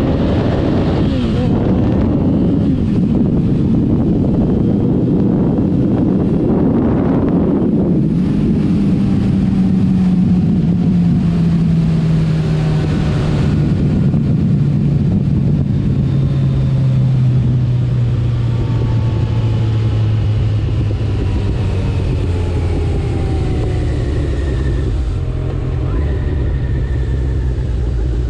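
Kawasaki ZX-14R inline-four running loud through a Two Brothers Black Series exhaust while the bike is ridden: the revs climb at the start, change sharply about eight seconds in, then the engine note sinks slowly over the rest as it rolls off.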